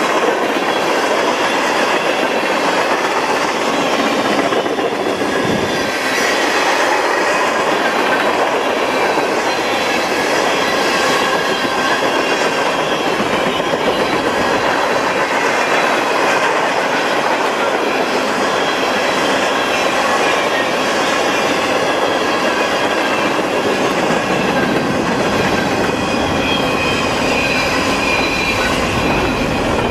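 Freight train cars rolling past at steady speed: a continuous clatter of steel wheels on rail with thin, high wheel squeals.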